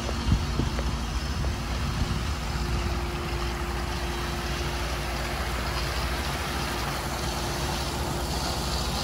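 Street ambience: a fountain's jets splashing steadily over a low, steady engine hum from traffic and machinery, with a short knock near the start.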